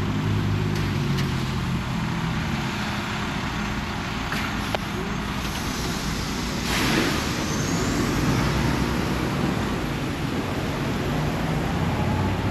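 Semi-truck diesel engine running steadily, with a short hiss about seven seconds in.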